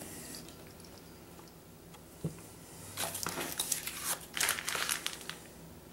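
A cat crunching dry kibble, in irregular clusters of short crackly crunches starting about three seconds in, after a single click.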